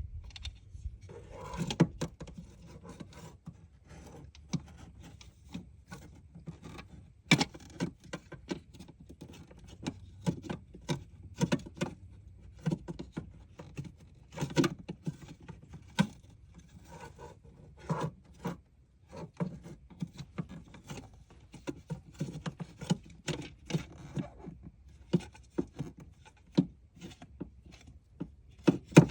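Irregular clicks, knocks and light scrapes of hard objects being handled, several a second at times, over a low steady hum.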